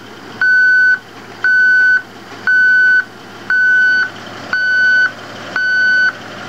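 Heavy-equipment backup alarm beeping steadily: one half-second tone about once a second, the signal of a machine reversing.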